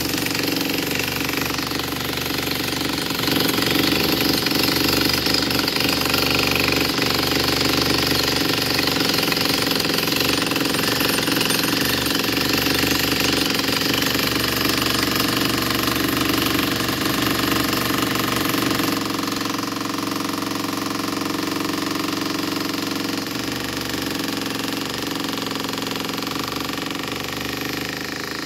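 Electric demolition hammer running continuously, its chisel bit breaking up a concrete slab.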